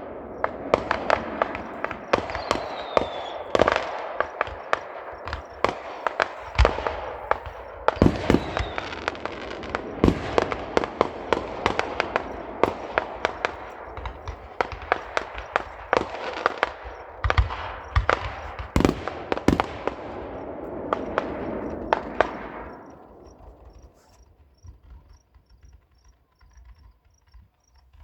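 Fireworks display: a rapid barrage of bangs over a continuous crackle, dying away about 23 seconds in.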